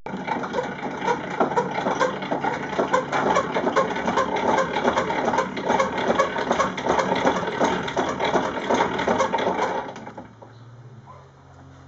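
Cast iron crank-style butter churn being wound fast by hand, its gearing and spinning tin canister of cream making a loud, rapid, continuous clatter that stops about ten seconds in.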